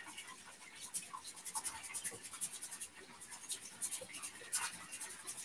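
Long grain white rice being shaken in a strainer under the kitchen tap, the grains rattling and scraping as a fast, irregular run of faint scratchy clicks.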